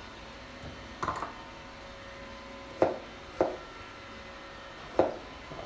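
Kitchen knife slicing strawberries on a plastic cutting board: four separate knocks of the blade on the board at uneven intervals.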